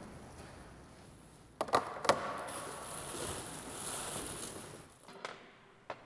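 Framed pictures being handled and unpacked from a box: two sharp knocks about one and a half and two seconds in, then a soft rustling of plastic packing, with a few small clicks near the end.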